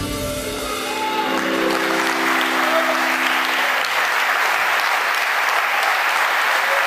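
Audience applauding and cheering, while the band's last held chord rings on and fades out about four seconds in.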